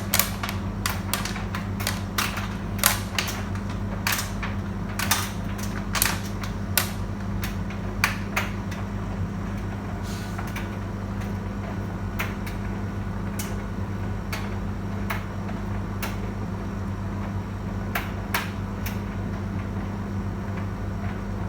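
Beko tumble dryer running with a steady motor hum, with irregular sharp clicks and knocks from the load tumbling in the drum. The knocks come often at first and grow sparser about halfway through.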